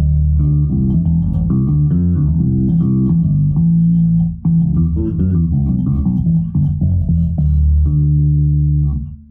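Six-string active electric bass played through a bass amp and Ampeg speaker cabinet: a riff of low notes played with the bass's 18-volt preamp bass EQ turned to maximum, so the low end comes out thick and heavy. A brief break comes about halfway, and it ends on a held note.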